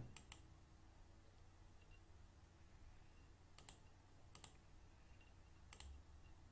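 Four faint computer mouse clicks over near silence. Each is a quick press-and-release double tick: one at the start, two a little after halfway, and one near the end.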